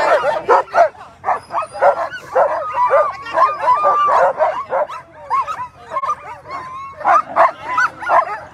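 Alaskan husky sled dogs in harness barking, yipping and whining all together, many voices overlapping, with some longer drawn-out whines: a team fired up and eager to run at the start of a race.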